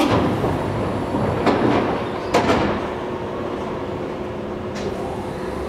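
Hokushin Kyuko 7000 series train standing at the platform with its pneumatic sliding doors working: three sudden bursts of hissing air in the first two and a half seconds and a faint one near the end, over the stopped train's steady hum.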